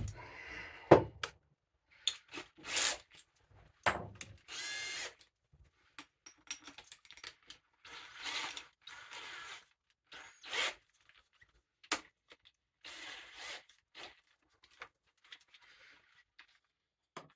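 A power drill's chuck being fitted and tightened onto a repaired ice auger bit: short runs of the drill turning, broken up by clicks and metal rattles as the bit's shaft is handled in the chuck.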